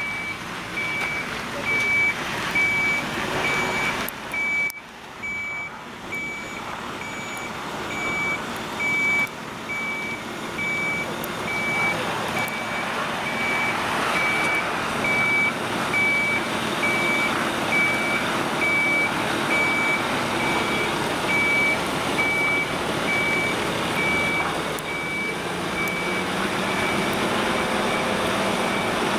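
A heavy-haulage truck's warning beeper sounding a steady high beep about once a second, over the diesel engine of the tractor unit pulling a boiler-bridge trailer. The engine noise grows louder in the second half.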